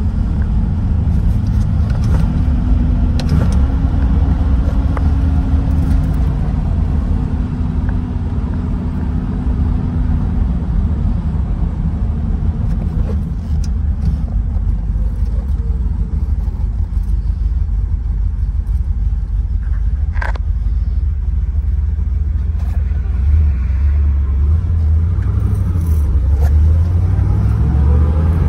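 A 1967 Corvette's 427 big-block V8 running under way, heard from the driver's seat as a steady low rumble at cruise. Its note shifts in the last few seconds as the car picks up speed. There is one sharp click about twenty seconds in.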